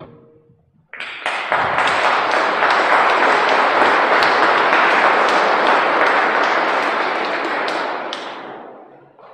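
Audience applauding: many hands clapping start about a second in, stay steady, and die away near the end.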